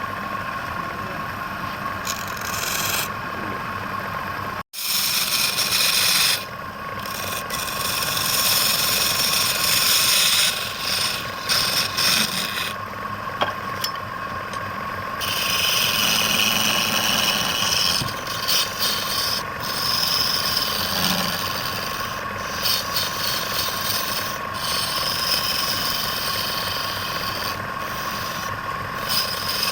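Wood lathe running with a steady whine while a tool scrapes and cuts against the spinning wood, the scraping rising and falling in loudness; the sound cuts out completely for a moment about five seconds in.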